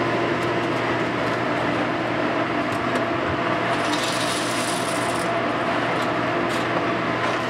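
Steady whir of commercial kitchen ventilation with a constant hum. About four seconds in, dry penne pasta rattles out of a cardboard box into a pasta cooker's boiling water for about a second and a half.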